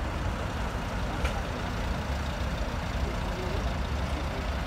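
A steady low rumble with faint, distant voices, and a single short click about a second in.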